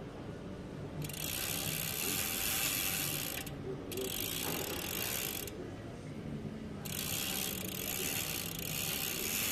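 Bicycle rear freewheel ratcheting with a dense run of clicks as the cranks are turned backward through a freshly oiled new chain. It comes in three spells with short pauses between them.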